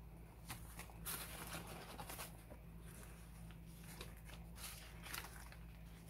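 Faint rustling and light taps of paper pieces being slid and laid on a tissue-paper-covered cover, over a steady low hum.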